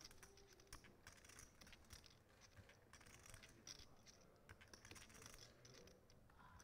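Near silence: quiet room tone with faint, irregular small clicks.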